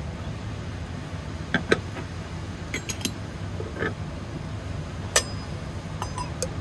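Parts of a metal percolator coffee pot clinking as the coffee basket and its stem are handled and fitted into the pot: scattered sharp metallic clinks, the loudest about five seconds in, over a steady low rumble.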